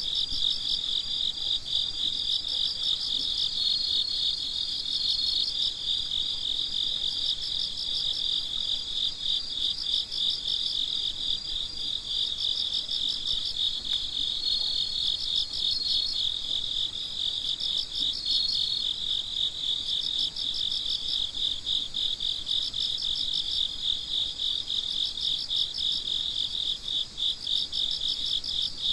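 A chorus of crickets chirping at night: a dense, unbroken mass of high chirps, with bursts of faster pulsing and a higher held note from other crickets coming and going over it.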